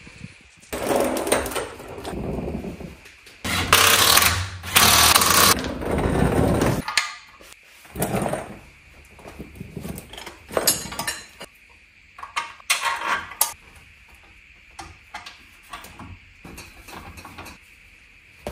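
Power impact wrench hammering in several bursts, the longest about two seconds, then shorter bursts with clicks and knocks of hand tools, as the engine-mount bolts are run in.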